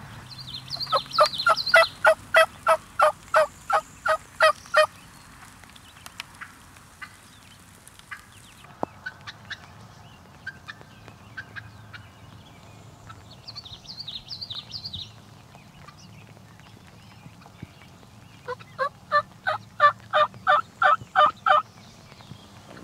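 Wild turkey yelping: a long series of evenly spaced yelps, about three a second, starting just after the beginning, then a second shorter series near the end. A songbird warbles faintly in the background.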